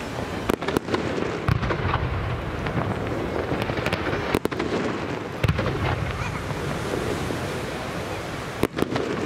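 Aerial fireworks display: shells bursting with several sharp bangs, a pair soon after the start, a few more spread through the middle and another pair near the end, over a steady rumble.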